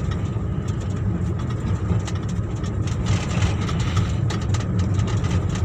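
Small manual car's engine and road noise heard inside the cabin, a steady low drone as the engine pulls in fifth gear at about 40 km/h under light throttle.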